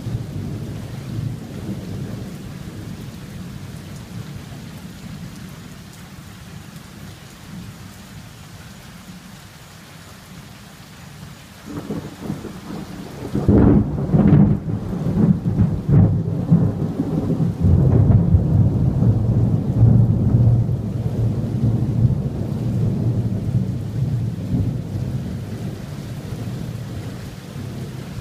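Thunder in a rainstorm: a low rumble fades away over the first ten seconds or so. A new peal builds about twelve seconds in, with sharp cracks around fourteen to sixteen seconds, then a long low rolling rumble that slowly dies away, over the hiss of rain.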